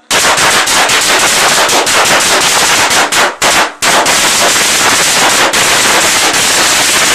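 A string of firecrackers going off in a bathtub: a loud, rapid, continuous crackle of bangs, broken by a short pause about three and a half seconds in.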